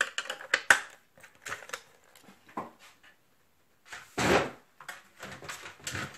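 A scoring board and a paper strip being handled and moved off a cutting mat. There are clicks and rustles in the first second, a few scattered taps, then a louder crunching clatter about four seconds in, with more rustling near the end.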